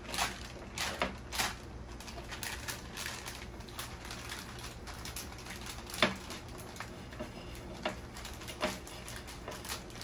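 Plastic MRE food pouches and the flameless ration heater bag crinkling as they are handled and slid together, in short spells of crackling, with one sharper crackle about six seconds in.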